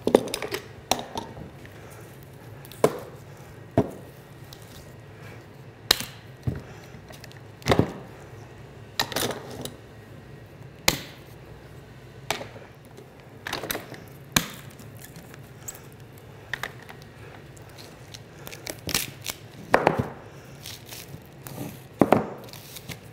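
Irwin quick-grip bar clamps being released one by one from a glued-up laminated white oak boat stem and set down on a wooden bench: a string of sharp clicks and clacks at uneven intervals, over a steady low hum.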